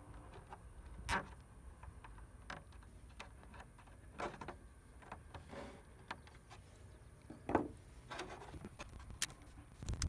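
Hands handling loose wiring and a hand-held wire crimper-stripper: a handful of separate clicks and rustles, the loudest a little after seven seconds in, as the tool is worked on a wire.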